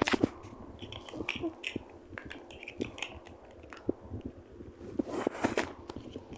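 Plastic Lego bricks being handled, with scattered small clicks and rattles and two louder rummaging bursts, one at the start and one about five seconds in.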